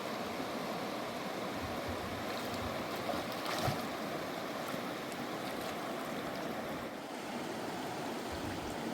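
Steady rush of a fast, swollen river. A single brief knock about three and a half seconds in.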